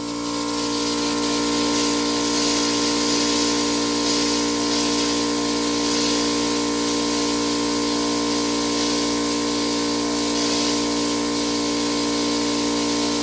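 Pop-up lawn sprinkler head hissing as compressed air drives the last water out of the line as a fine mist; the zone is mostly draining to air. The hiss builds over the first couple of seconds and then holds steady, over the steady drone of a small air compressor running to keep the line pressurised.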